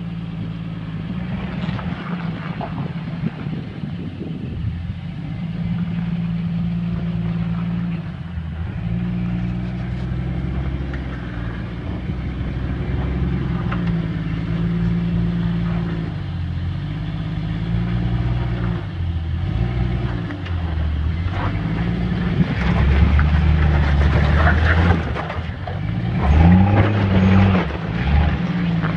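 Jeep Cherokee XJ rock crawler's engine running under load and revving up and down as it climbs over boulders, with bigger, louder surges of throttle near the end.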